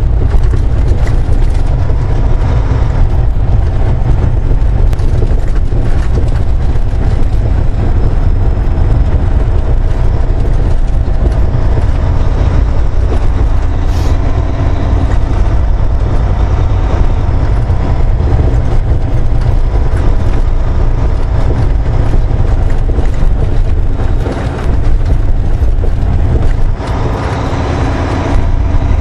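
Heavy truck cruising at highway speed, heard from inside the cab: a loud, steady, deep engine and road rumble.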